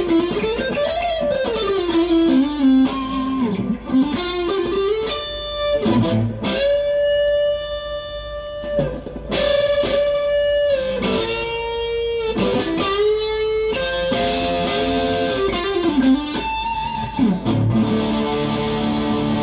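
PRS SE DGT electric guitar playing a lead melody with bent, gliding notes and several long sustained notes held near the middle, moving into fuller chord-like notes near the end.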